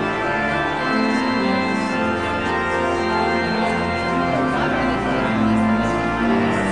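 Church organ playing the postlude that closes the service: full sustained chords over deep bass notes that change every few seconds.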